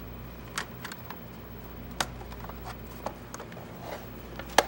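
Sharp plastic clicks and knocks as the KoalaPad's plastic top cover is pressed into place and the tablet is handled, about six over a few seconds, the loudest near the end, over a steady low hum.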